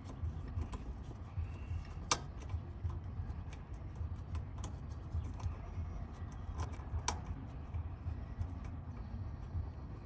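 Light scattered clicks and taps of a GY6 ignition coil and its mounting bolt being handled against the metal bracket while the coil is set into place, with two sharper clicks about two seconds and seven seconds in. A low steady rumble runs underneath.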